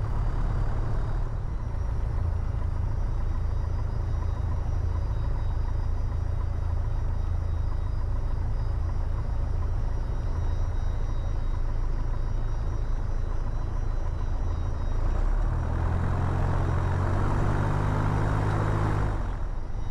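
The four-cylinder Lycoming O-360 engine of a 1987 Piper PA28-181 Archer runs steadily at low taxi power. Its low drone grows stronger for a few seconds near the end.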